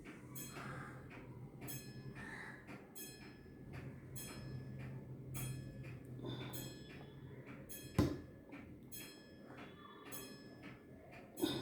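Small metal clicks from a spring being pressed into a pocket watch movement, the sharpest about eight seconds in and just before the end. Under them runs soft, regular ticking about every 0.6 s over a low hum.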